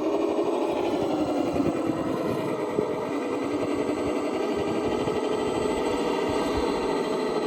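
A radio-controlled crawler's small electric motor and gear drivetrain whining steadily, dipping slightly in pitch about a second in. Scattered light clicks and knocks are heard as it drives.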